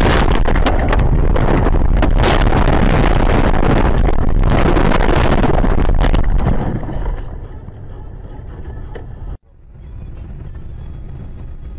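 Loud, continuous crashing noise with rapid knocks and rattles, and wind buffeting the dashcam microphone, as a vehicle goes off a snowy mountain road and tumbles. It dies away about seven seconds in. After a short dropout about nine seconds in comes a steadier road and engine noise heard from inside a car driving on a highway.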